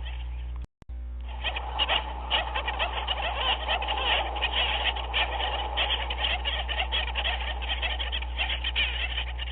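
Dense chorus of many animals calling at once, short overlapping calls with no pause, over a steady low hum. The whole sound cuts out briefly just under a second in.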